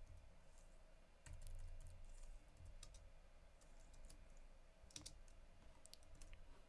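Faint, scattered computer keyboard keystrokes, a handful of separate clicks, over a low steady hum.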